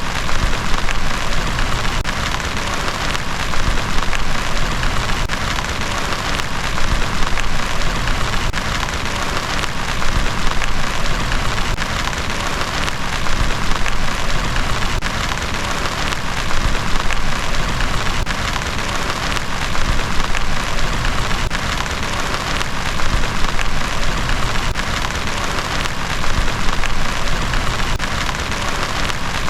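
Heavy rain falling steadily, a dense patter of many drops that swells a little in loudness every few seconds.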